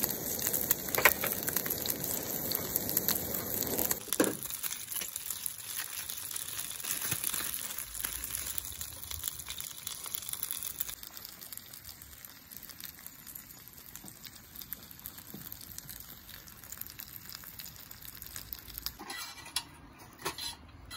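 Hamburger patty sizzling and crackling in hot oil in a small frying pan, full of quick pops. After about four seconds it drops to a quieter, steady sizzle.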